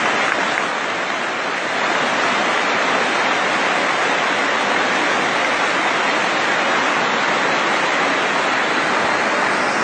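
Waterfall rushing steadily over rocks.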